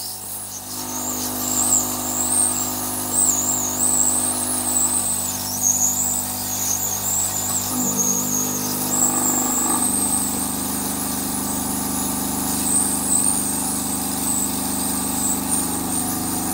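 Hot-air SMD rework station blowing onto a TV main board to desolder a 2R2 inductor. It makes a steady blower hum with a wavering high whistle, and the hum shifts in pitch about ten seconds in.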